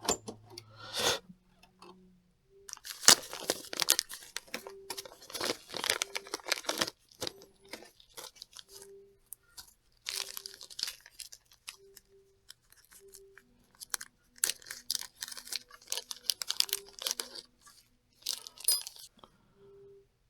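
Hands working on small RC truck parts: several bursts of crinkly tearing and crunching noise separated by pauses, the longest lasting about four seconds.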